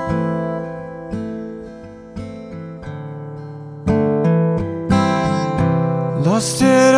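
Instrumental music: chords struck about once a second, each ringing and fading, growing louder and busier about four seconds in.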